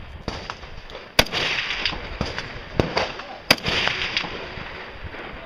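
Rifle shots fired at irregular intervals, the two loudest about a second in and about three and a half seconds in, each followed by a trailing echo off the quarry walls, with fainter shots between.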